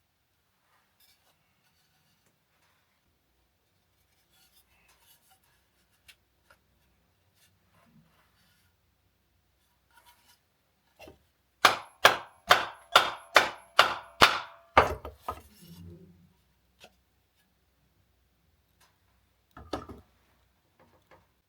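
A quick run of about nine sharp hammer strikes on wood, roughly three a second, with a few lighter knocks after it and again near the end. Faint clicks and handling of wood come before it.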